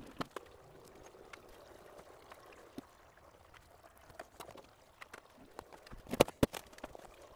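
Scattered light clicks and knocks of hand tools and metal parts being worked on in an engine bay, with a louder cluster of sharp clicks about six seconds in, over a faint steady hum.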